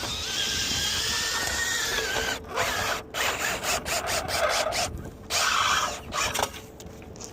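A cordless drill spins a rotary dryer-vent cleaning brush inside the vent duct, clearing a lint clog. It runs steadily with a whine for about two seconds, then in short stop-start bursts as the trigger is pulsed.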